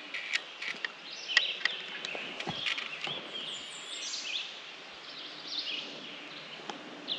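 Wild songbirds chirping and singing over a steady outdoor hiss, with several short sharp clicks in the first three seconds.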